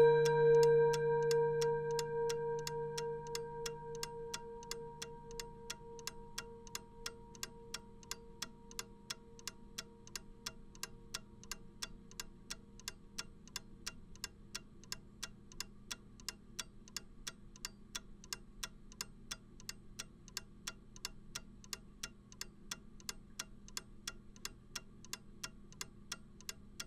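Old longcase clock ticking steadily, about three ticks a second. Over the first several seconds, the ringing tone of a strike just before fades out.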